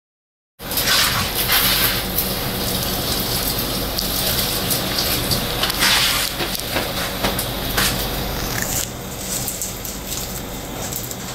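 Running water: a steady rushing hiss with a few louder splashing surges. It starts abruptly about half a second in and eases slightly near the end.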